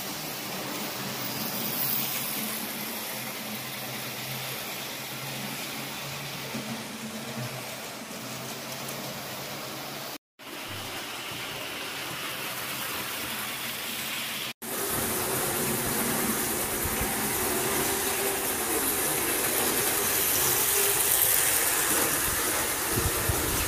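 Model trains running on a layout's track, a steady mechanical running noise. It drops out briefly twice, about ten and fourteen seconds in, and is louder after the second.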